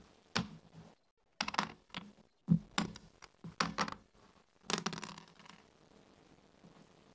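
Backgammon checkers clicking and knocking as they are picked up and set down on a wooden board, in a run of sharp clicks over the first five seconds. About five seconds in comes a longer rattling clatter as the dice are thrown onto the board.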